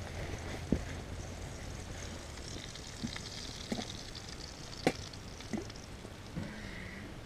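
Hot grease hissing in a frying pan of fry bread over a campfire, with a few sharp clicks and knocks scattered through.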